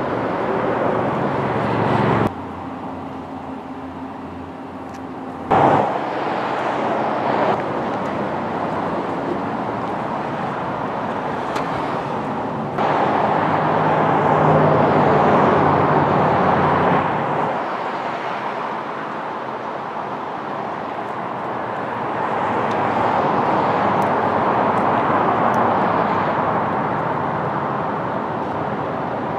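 Steady outdoor traffic noise, a hiss of passing vehicles that jumps abruptly in level several times and swells again near the end.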